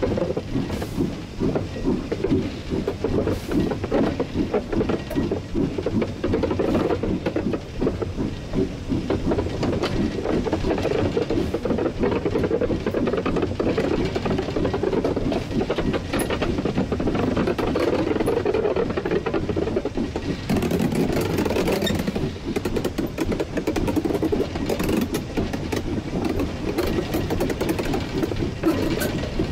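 1943 Davenport-built steam locomotive under way, heard from the cab: steady rhythmic clatter and knocking of the running gear and exhaust. A higher hiss joins about two-thirds of the way through.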